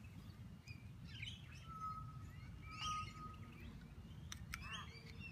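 Birds chirping and calling, including two short level whistled notes about two and three seconds in, over a steady low background rumble.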